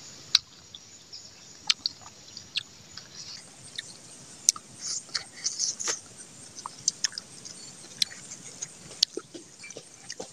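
A person chewing and smacking his lips while eating rice by hand, close to the microphone: irregular short, sharp mouth clicks with no steady rhythm.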